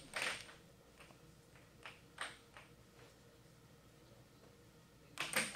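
Air hockey puck clacking off plastic mallets and the table's rails in play: a few sharp knocks in the first three seconds, then a louder cluster of clacks near the end.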